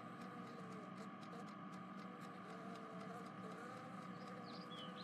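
Near silence: a faint steady hiss and hum of background noise, with a few faint short chirps near the end.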